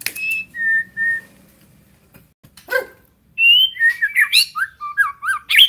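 White-rumped shama (murai batu) whistling: two clear held notes about a second in, then, from a little past halfway, a fast run of varied sliding whistled notes.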